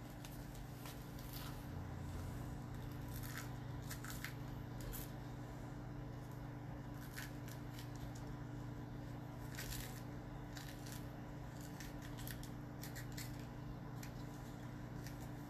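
Faint, irregular little cuts and scrapes of a Tupperware pepper corer working through a jalapeño, coring it and scraping out the seeds, over a steady low hum.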